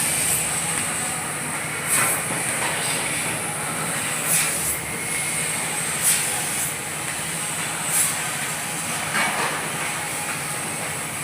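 CNC sheet-metal cutting machine running: a steady high hiss with a short, sharper burst about every two seconds.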